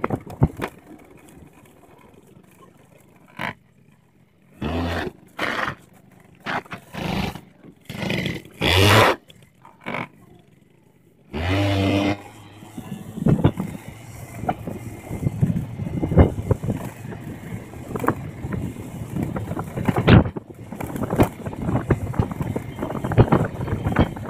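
Honda Dio 50 cc two-stroke scooter engine, fitted with a new 670×18 variator belt and 7.5 g rollers. It is blipped in several short revs while standing, then taken to full throttle about eleven seconds in and held there as the scooter accelerates toward its top speed, with wind buffeting the microphone.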